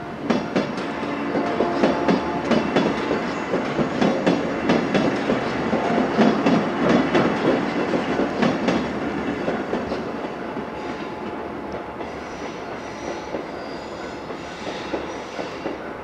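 Red JR West 103 series electric train passing over a level crossing, its wheels clattering rhythmically over the rail joints. The clatter is loudest in the first half and eases off, with faint high squeals near the end.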